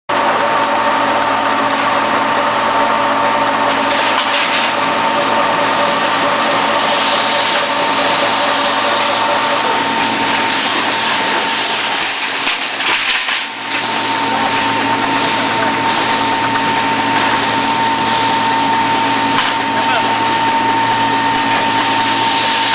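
Steady machine noise from a longitudinal seam welding machine at work: a constant hum with a few fixed tones over a hiss, briefly dipping about 13 seconds in.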